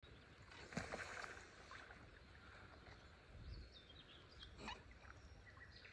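Near silence: faint outdoor background noise with a few soft, brief sounds, about a second in and again at about four and a half seconds.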